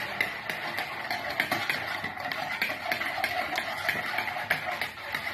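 Electric hand mixer running steadily, its beaters ticking against the bowl as it beats eggs and oil together.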